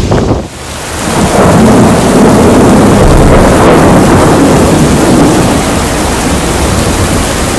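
Heavy hurricane rain pouring down steadily, with a deep rumble underneath. The sound dips briefly about half a second in, then swells back up to full strength.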